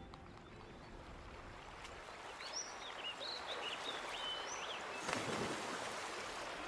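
Creek water running over rocks, with birds chirping about two to four seconds in and a brief louder burst of noise about five seconds in.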